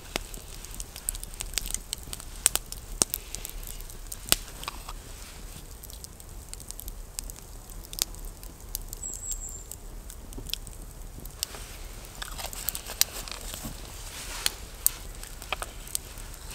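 Small wood campfire crackling, with sharp, irregular snaps and pops, alongside light clicks and rustles of food being handled and prepared.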